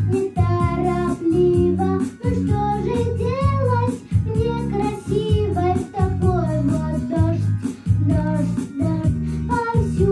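A young girl singing a pop song into a handheld microphone over a recorded backing track with a steady beat.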